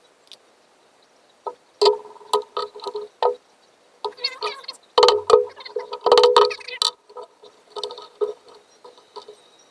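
Irregular knocks and clinks of metal leatherworking tools handled on a workbench, each with a short ring. They come thickest from about four to seven seconds in.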